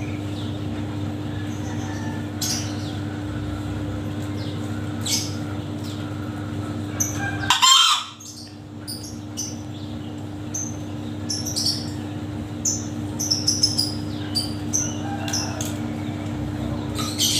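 Male green junglefowl crowing once, about seven and a half seconds in: a short crow that cuts off suddenly. Under it a steady low hum runs throughout, with scattered short high chirps.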